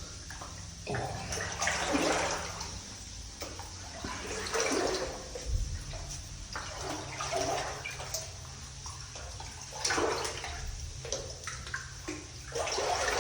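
Footsteps wading through shallow water, splashing and sloshing every second or two.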